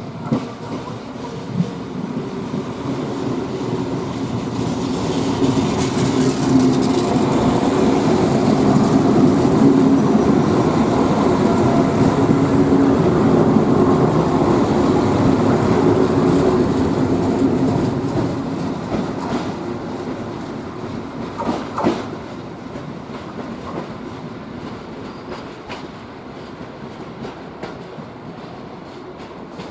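DPKr-2 diesel multiple unit pulling out and passing close by, its running noise and the clack of wheels over rail joints. It grows loudest in the middle, then fades as the train draws away, with a sharp clack about 22 seconds in.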